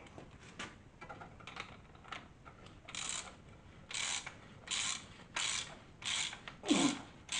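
Socket ratchet tightening the cap bolt on a motorcycle front fork. Light clicks and handling come first, then from about three seconds in a run of about six rasping ratchet strokes, one every 0.7 s or so. A short falling squeak near the end is the loudest sound.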